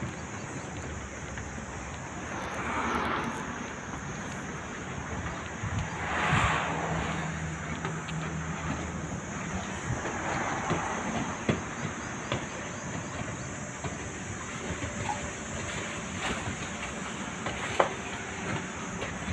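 Steady rush of outdoor noise that swells louder a few times, with a few sharp clicks, the loudest near the end.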